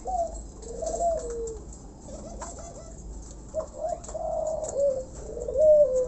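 Spotted dove cooing: a run of low coos, each rising briefly and then falling, repeated every second or so, with faint chirps from other birds behind.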